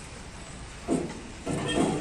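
A wooden plank knocking and rubbing against a steel truck-cabin frame: a sudden knock about a second in, then a longer clatter near the end.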